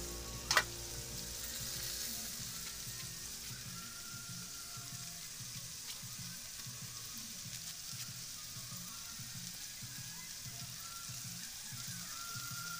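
Whole fish cooking in a wok on a portable butane gas stove, a steady sizzling hiss. A single sharp metallic clink about half a second in as the wok's lid is lifted off.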